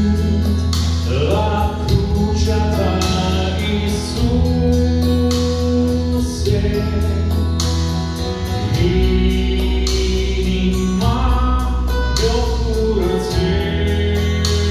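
Men singing a gospel song in Romanian into microphones, over instrumental accompaniment with sustained low chords and a steady beat.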